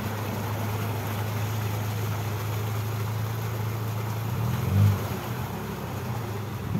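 Toyota off-road vehicle's engine running steadily at low revs while crawling over rocks, with a brief rise in revs about four and a half seconds in.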